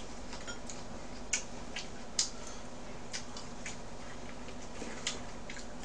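Scattered light clicks and taps of tableware and food being handled at a meal table, the sharpest about a second and a half in and two seconds in, over a faint steady low hum.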